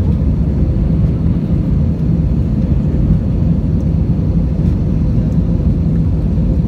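Cabin noise of a jet airliner climbing after takeoff, heard from a window seat: engines and airflow make a steady low rumble with a faint hum above it.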